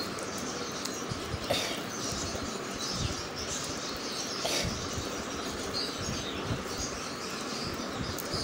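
Small birds chirping in the background over a steady hiss, with faint soft knocks and squishing from fingers pressing cooked garlic cloves in a steel dish.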